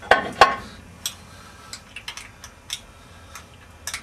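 Metal clinks and taps from hands and fittings on the top of a stopped Lister diesel engine during pre-start greasing and oiling. Two sharper knocks come right at the start, then lighter scattered clicks.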